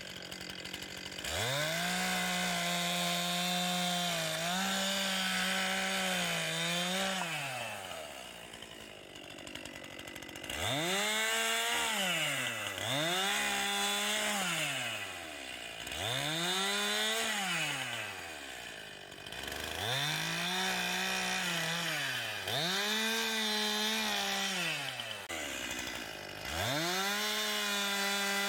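Two-stroke gas chainsaw revved up to full throttle again and again, about seven times, holding high for a few seconds and dropping back to idle between, as it cuts through wood.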